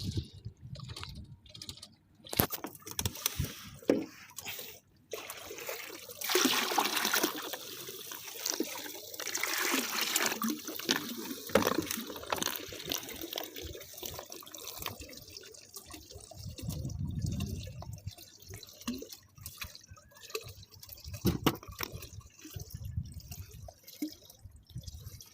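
Water splashing and dripping, loudest for a few seconds in the middle, with scattered knocks and clicks.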